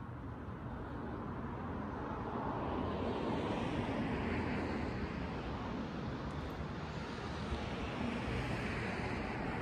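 Steady outdoor rush of road traffic, swelling about three seconds in and again near the end as vehicles pass.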